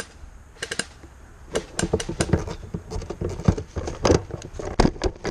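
Airsoft gun firing a short rapid burst of evenly spaced shots about half a second in, followed by a longer run of irregular clicks and knocks with low thuds.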